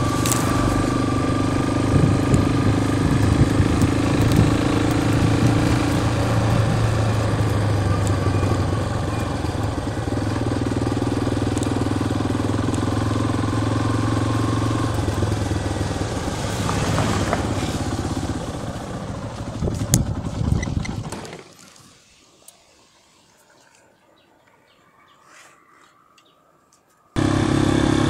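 Yamaha Lander motorcycle's single-cylinder engine running steadily while riding along a dirt road, with wind and road noise. About 21 seconds in, the sound falls away to faint quiet; the engine sound cuts back in abruptly near the end.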